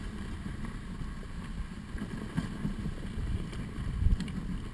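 Dog sled running on a groomed snow trail: an uneven low rumble from the runners with wind on the microphone, and a thump about four seconds in.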